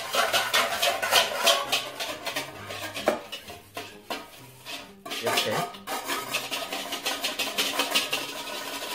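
A large wire balloon whisk beats egg whites in a stainless steel mixing bowl, its wires clattering and scraping against the metal in rapid strokes. The whisking slackens for a moment around the middle, then picks up again.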